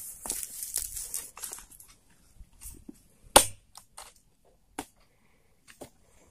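Oil palm fruit bunches rustling and crackling as they are shifted and strapped down with a rubber cord on a motorcycle's wooden cargo rack. Scattered clicks follow, with one sharp knock about three and a half seconds in.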